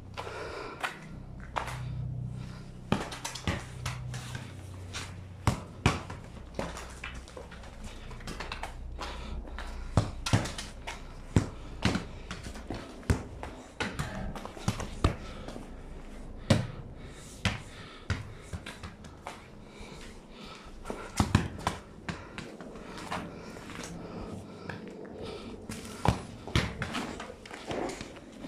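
A small football being kicked along pavement and bouncing off it: a run of irregular sharp thuds and taps, mixed with footsteps.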